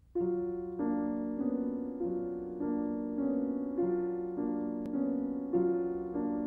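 Piano music begins at once: a steady repeating figure of chords struck about every two-thirds of a second, over a held low bass note that changes every third chord.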